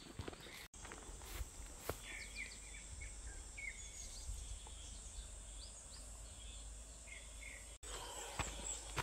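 Forest ambience: a bird giving short chirping calls over a steady, high insect drone. Footsteps on the trail are heard near the start and again near the end.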